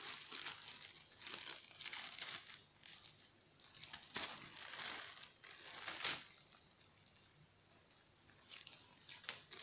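Thin plastic wrapping crinkling and rustling as it is pulled open by hand, in irregular bursts for about six seconds, then mostly quiet with a few light rustles near the end.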